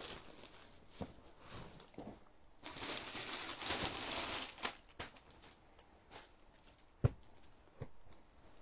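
Cloth garments rustling as they are handled, picked up and laid out on a floor, with the loudest rustle about three to four and a half seconds in. A few soft knocks, and a sharp thump about seven seconds in.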